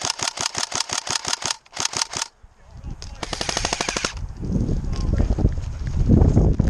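Tokyo Marui SCAR L airsoft electric gun firing on full auto: a rapid even rattle of about eight shots a second for two seconds with a short break. About a second later comes a faster, shorter burst, then a low rumble.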